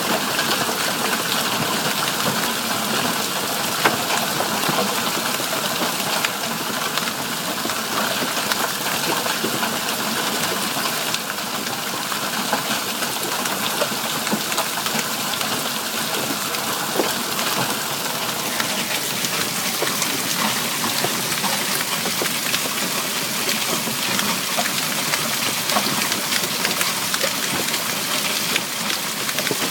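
Hailstorm with heavy rain: a dense, steady hiss of falling rain, peppered with many small sharp ticks of hailstones striking hard surfaces.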